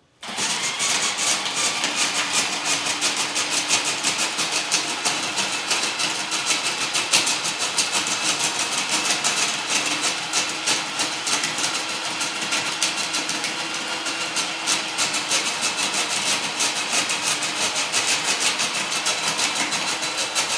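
Hawaiian Shaved Ice electric snow cone maker running, its motor-driven blade shaving a load of ice cubes with a steady, dense crunching rattle. It switches on abruptly just after the start.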